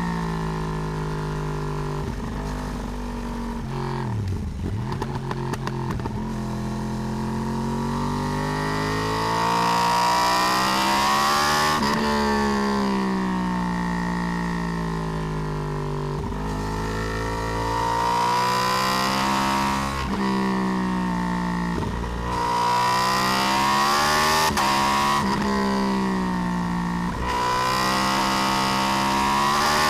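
Yamaha R1 RN22's crossplane inline-four with its uneven 'big bang' firing beat, ridden hard. The engine note climbs under acceleration and sinks back several times, with abrupt breaks in pitch at the gear changes.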